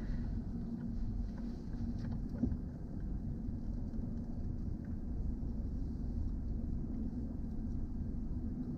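Car engine idling, heard from inside the cabin: a steady low rumble with a constant hum over it, and one light click about two and a half seconds in.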